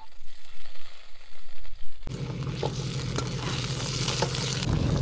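Sliced potatoes and wild onions frying in an oiled skillet on a canister camp stove: a steady sizzle that grows fuller about two seconds in, with a spatula scraping and stirring the pan. Near the end a vehicle's engine hum grows louder.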